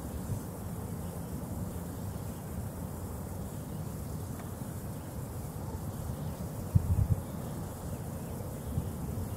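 Wind buffeting the microphone: a steady low rumble, with a louder gust about seven seconds in.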